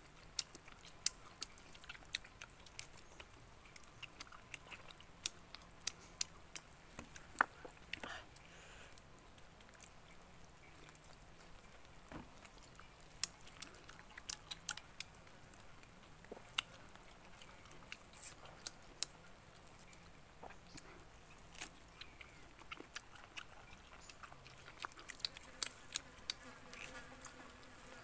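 Close eating sounds: chewing and lip-smacking on roast chicken, heard as a long series of sharp, irregular clicks. Near the end an insect, likely a fly, buzzes close to the microphone.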